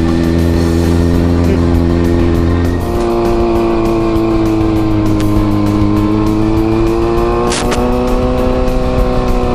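Kawasaki ZRX400 inline-four motorcycle engine running while riding, steady at first; about three seconds in the revs change and then slowly rise and fall. A brief hiss about seven and a half seconds in.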